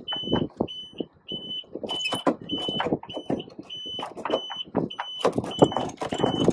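Electronic alarm beeping: short high beeps of one steady pitch, about one and a half a second, without a break. Under it, irregular knocks and rustles from lines and deck gear being handled.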